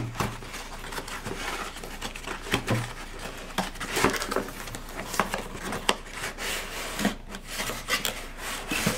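Camera packaging being handled and opened by hand: rubbing and scraping with many scattered clicks and knocks.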